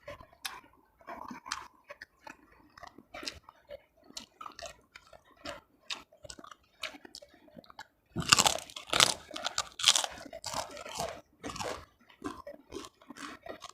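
Close-up chewing of food with short, crisp chewing sounds, then a louder run of crunchy bites and chewing from about 8 seconds in that lasts a few seconds.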